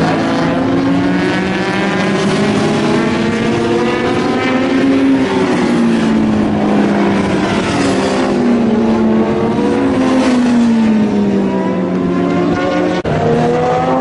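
Several racing motorcycles passing through a corner at speed, their engines overlapping, each rising and falling in pitch as the riders accelerate and shift gear. The sound briefly drops out near the end.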